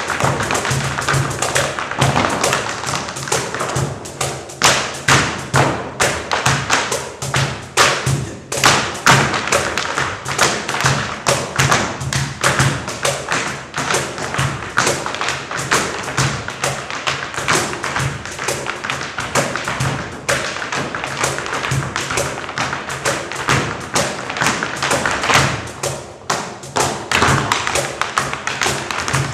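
Dancers' shoes beating rapid, dense percussive footwork on a stage floor, with music under it.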